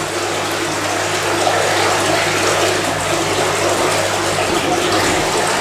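Two submersible drainage pumps running, a steady hum under the rush and splash of water as they pump the tank down.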